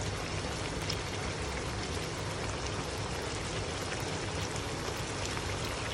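Thick dark beef curry gravy simmering in a wok, a steady sizzling bubble with faint scattered pops.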